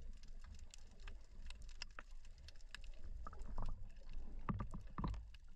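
Underwater reef ambience: scattered sharp crackling clicks over a steady low rumble, with a few louder low gushing surges between about three and five seconds in.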